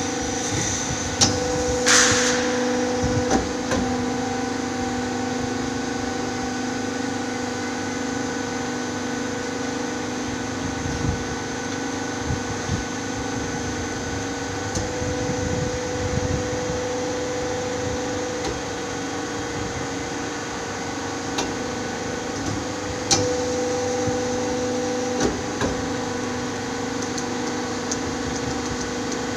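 Sheet-metal machine's motor running with a steady hum, with a few sharp mechanical knocks and clicks, the loudest about two seconds in and again about 23 seconds in.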